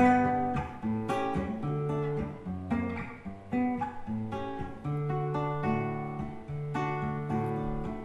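Solo acoustic guitar playing an instrumental interlude, a run of plucked notes about twice a second, with no voice.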